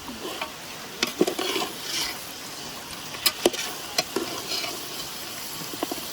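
Mutton frying in a cooking pot, sizzling steadily, while a spoon knocks and scrapes against the pot a few times as it is stirred.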